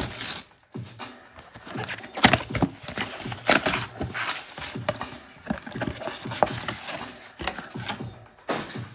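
Cellophane card-pack wrappers crinkling and tearing, with the rustle and light clicks of trading cards being handled.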